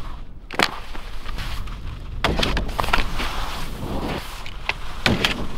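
Skis on a tube rail and on hard snow: sharp clacks and knocks of the skis with scraping and rushing between them, a cluster of them as a skier slides and falls.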